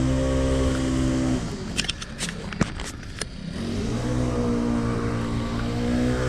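Two-stroke string trimmer (weed whacker) running at high revs. It throttles down about a second and a half in, then revs back up about four seconds in. A few sharp clicks fall in the lull.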